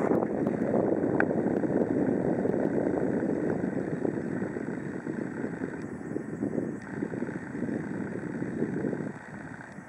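Landing jet airliner's engines heard across the airfield as a steady rushing noise that slowly fades, dropping off further about nine seconds in.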